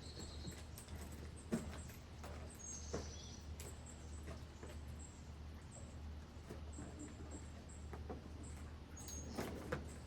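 A few short, high bird chirps and scattered soft clicks, all faint, over a low steady hum.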